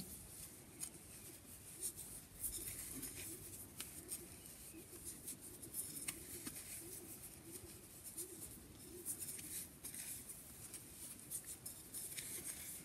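Faint clicks of wooden knitting needles and rustle of chunky wool yarn as stitches are purled, with small irregular ticks scattered throughout.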